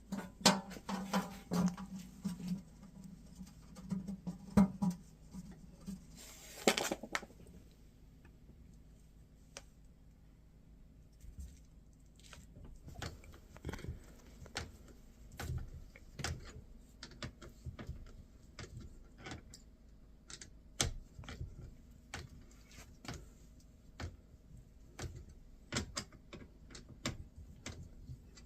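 Irregular light clicks and knocks of parts being handled during the sump pump fitting, with a low hum in the first few seconds and a brief rushing noise about seven seconds in.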